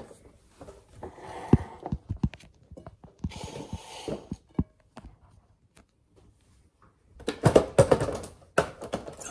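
Clunks, knocks and scrapes of a countertop blender being handled and set on the kitchen counter, with a sharp thud about one and a half seconds in, a brief rustle near the microphone in the middle, and a busier run of knocks near the end.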